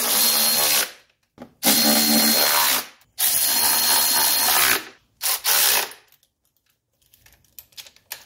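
Cordless electric ratchet spinning the 13 mm valve cover nuts down onto their studs. It makes three runs of about a second and a half each with a steady motor whine, then two short blips, then a few faint clicks.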